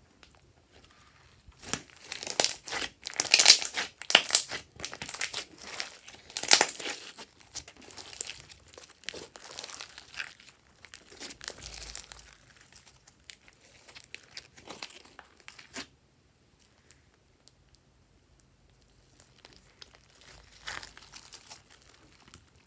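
Pastel slime mixed with foam beads being stretched and squished by hand, giving a dense run of small crackles and clicks. They start about two seconds in, are loudest over the next few seconds, die away past the middle, and come back more softly near the end.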